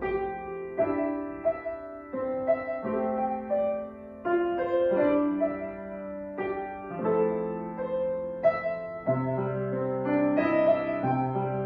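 Solo piano music at a slow pace, held chords under a melody, with a new note or chord about once a second. A lower bass note comes in about nine seconds in.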